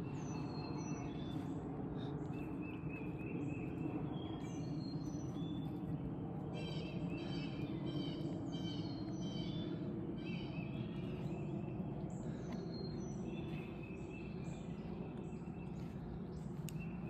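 Several songbirds singing and chirping, short whistled notes and trills overlapping, over a steady low background rumble.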